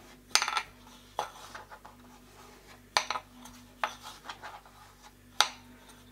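Wooden stick knocking against a plastic cutting board while dough is shaped: about five sharp clacks, irregularly spaced, with a few softer taps between.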